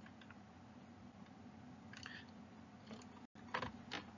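Quiet room tone with a faint steady hum, broken by a few soft clicks. The sound drops out completely for an instant about three seconds in, and a couple of slightly louder clicks follow near the end.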